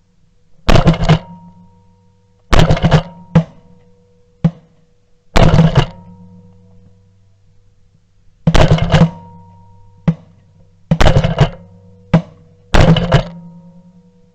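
Shotgun volleys: groups of two or three quick shots, repeated about eight times at uneven spacing, each group ringing away over a second. A steady music bed runs underneath.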